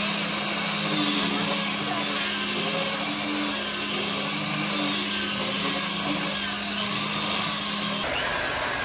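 Handheld electric disc sander running steadily against a solid-wood tabletop: a continuous motor hum under the rasp of the abrasive disc on the wood. The hum cuts off abruptly about eight seconds in and gives way to a lower, rougher noise.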